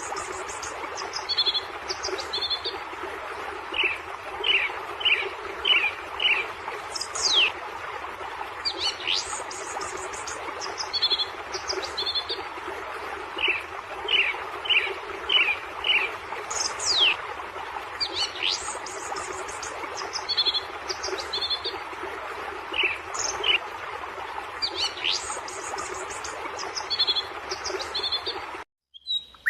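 Birdsong: a phrase of four or five short, falling whistles followed by sharp downward sweeps and high buzzy trills, repeated about every ten seconds, over a steady background hiss. The sound cuts out briefly near the end.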